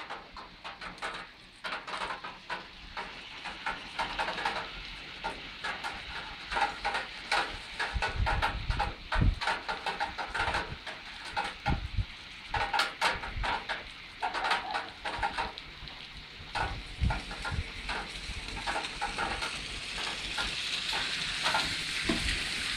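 Rain falling in a sunshower: many close drops pattering and splashing over a steady hiss of rainfall, which grows denser near the end.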